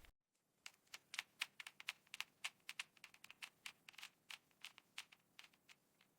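Mechanical keyboard keys being pressed, quick irregular clicks several a second that start about half a second in and thin out near the end.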